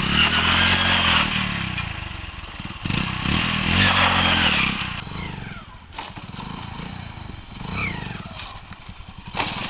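Motorcycle engine revved up twice, each rev held for a second or two, then running lower and rougher with a few sharp clicks.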